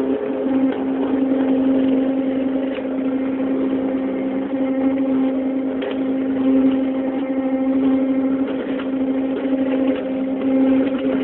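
CNC machine running: a steady motor hum held at one pitch, with faint light ticks now and then.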